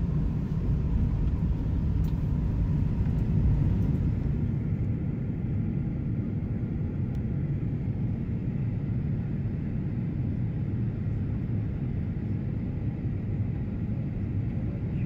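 Airliner cabin noise: a steady low rumble of engines and airflow heard from inside the cabin, easing slightly about four seconds in.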